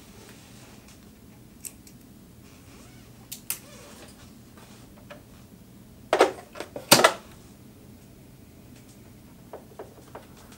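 Scattered clicks and knocks of hands handling the plastic and metal parts of a Singer Heavy Duty sewing machine while threading it. A cluster of louder clacks comes about six to seven seconds in, then a few light ticks near the end.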